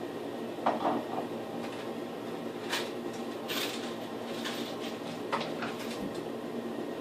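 A few light knocks and short scrapes as a metal level is held and shifted against the drywall, over a steady low hum.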